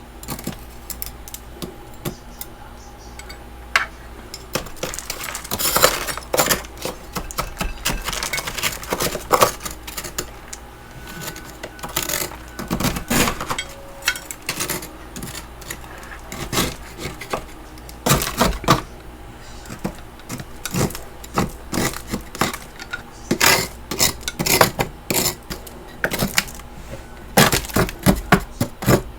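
Built-up freezer frost being scraped loose with a utensil: irregular scratchy scrapes and crunches with metallic clinks, coming in clusters.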